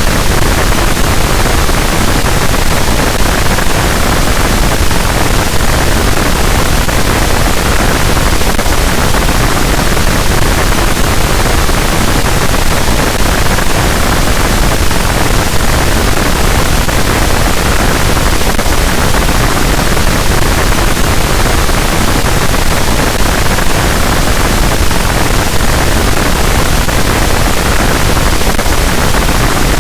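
Harsh noise wall: a loud, unchanging wall of dense static that fills the whole range from deep rumble to high hiss.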